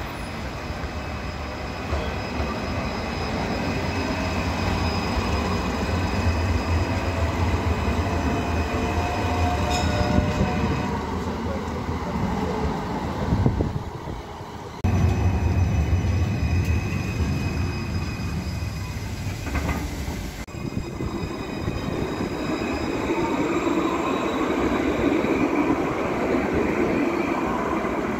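Electric trams running on street track: a steady low rumble of wheels on rail with the whine of the traction motors. The sound drops away briefly about halfway through, and near the end a whine rises in pitch as a tram gathers speed.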